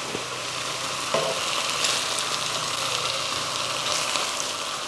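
Thick bacon slices sizzling in butter in a wok: a steady frying hiss with a few faint crackles.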